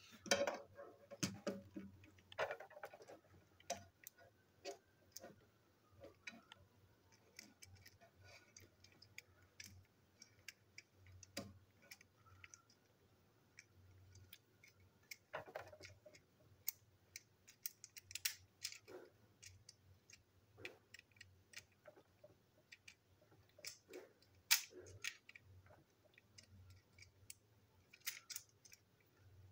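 Faint, irregular clicks and taps of small plastic toy-train parts being handled and set down on a hard tabletop, a few of them sharper.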